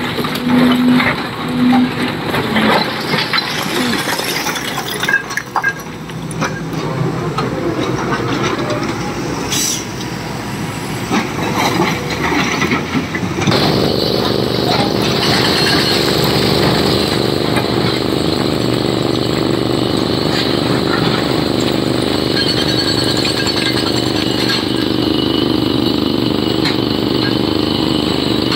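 Heavy diesel construction machinery working, with uneven knocks and clanks over engine noise. About halfway through, a diesel engine comes in louder and holds a steady drone.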